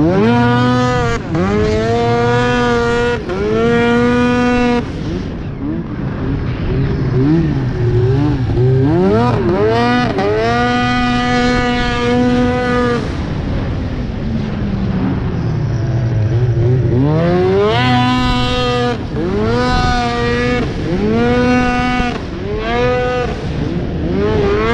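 Arctic Cat Crossfire 1000 R snowmobile's two-stroke twin running through a loud aftermarket GGB exhaust can, revving hard in pulses. It climbs quickly to high revs and holds there, drops away to a lower note, and climbs again three times, with shorter throttle blips near the end.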